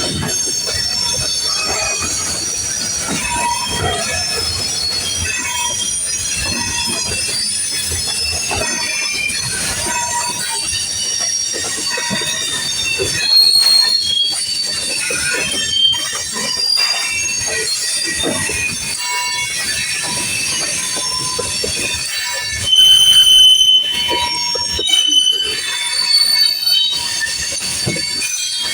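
Cars of a long manifest freight train rolling past, their steel wheels squealing against the rail in thin, high, wavering tones over a steady rumble, with louder squeals about halfway through and again near the end.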